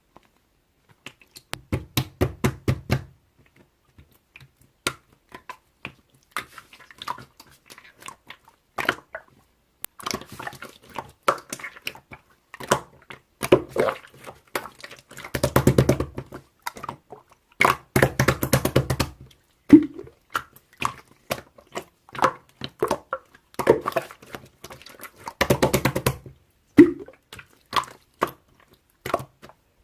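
Slime being squeezed and kneaded by hand, in repeated bursts of wet clicking and popping from trapped air, with quieter gaps between.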